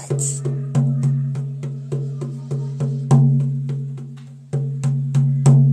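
Rawhide frame drum beaten in a steady, even rhythm of a few strokes a second, each stroke's low tone ringing on into the next, with a short break about four seconds in.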